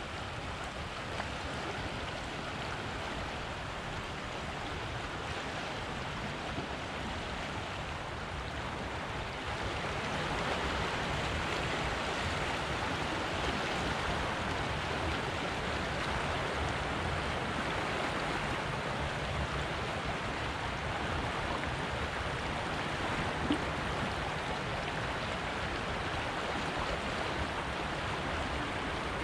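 River water flowing over a shallow gravel riffle: a steady rushing that grows a little louder about ten seconds in.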